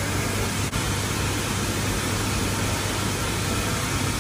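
Steady industrial machinery noise of a boiler plant: an even rushing hiss over a constant low hum.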